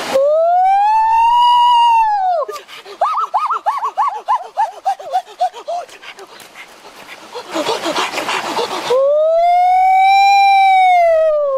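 Two long howling calls, each rising and then falling in pitch, with a run of short yelping notes fading away between them.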